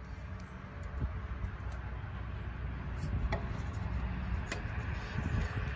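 A few light metal clicks as the valve cover is lifted off a Honda GX engine's cylinder head, over a low steady rumble.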